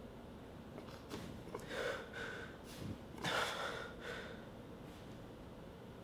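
A man gasping and breathing hard in pain, several short sharp breaths, the loudest about three seconds in.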